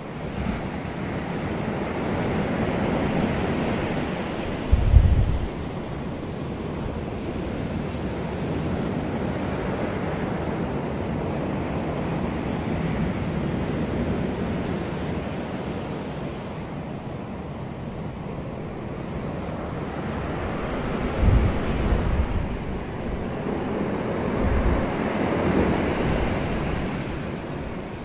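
Ocean surf breaking and washing in, the wash swelling and ebbing slowly. Low thumps of wind buffeting the microphone come about five seconds in and twice more near the end.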